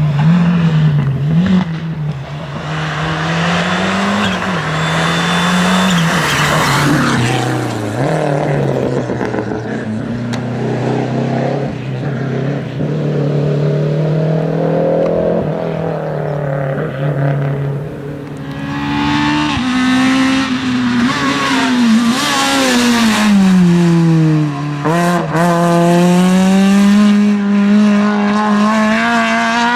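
Rally car engines revving hard through a special stage, the pitch climbing and dropping again and again with gear changes and lifts. About twenty seconds in, an engine grows louder and clearer as a car comes close.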